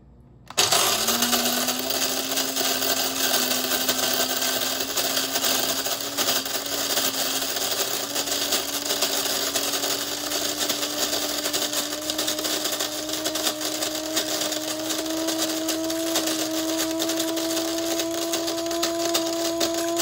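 Cuisinart Supreme Grind automatic burr mill grinding coffee beans, starting about half a second in and running steadily, its motor whine rising slowly in pitch. It keeps running well past the 12 seconds set on its timer, which fails to shut it off on this defective unit.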